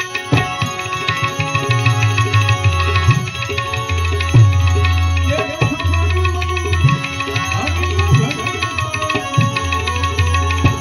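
Live Gujarati bhajan music: a harmonium with tabla strokes, manjira hand cymbals and a bulbul tarang (Indian banjo). A man's voice sings a curving phrase through the middle.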